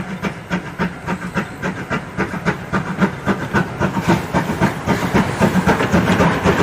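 Steam-train sound for a Thomas the Tank Engine toy train: quick, even chuffing over a hiss, getting louder toward the end.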